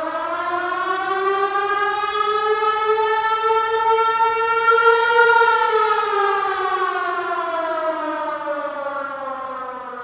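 A siren wailing: one long, continuous tone that rises slowly in pitch, peaks about halfway through, then falls away.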